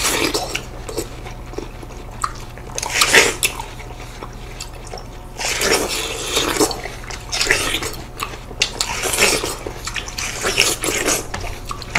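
Two people biting and chewing slices of seedless watermelon: wet, juicy bites and chewing in irregular bursts every second or two.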